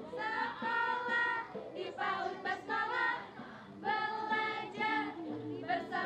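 A group of schoolchildren singing a children's song together with the young women leading them, in short phrases with held notes.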